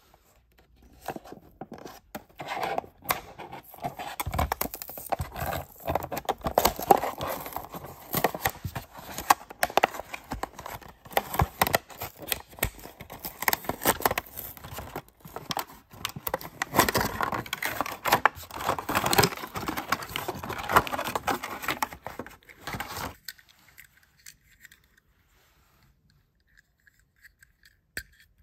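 A toy-car blister pack being torn open by hand: the cardboard backing card ripping and the stiff plastic blister scraping and crackling. The run of rips and scrapes starts about a second in and stops about five seconds before the end.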